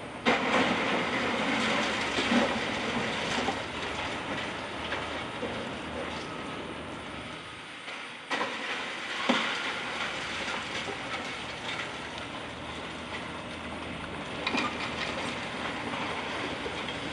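Wrecking ball smashing into a building's ruined steel-and-concrete frame: a sudden crash less than a second in and another about eight seconds in, each followed by a long rattling clatter of falling concrete and twisted metal debris.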